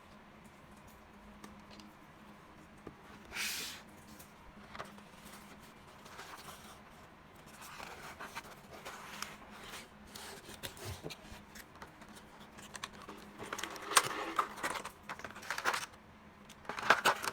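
Plastic PBT keycaps being handled: scattered small clicks, taps and scraping, with a short swish about three seconds in and denser, louder clattering of keycaps over the last few seconds.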